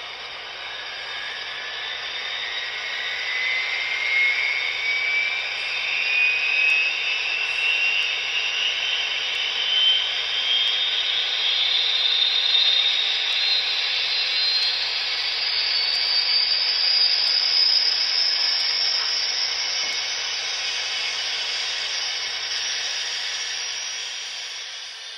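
Gas-turbine ignition and spool-up played by the ESU LokSound 5 sound decoder through the speaker of an HO scale Union Pacific GTEL 8500 hp turbine locomotive model. A rushing hiss carries a whine that rises steadily in pitch for about fifteen seconds, then holds high.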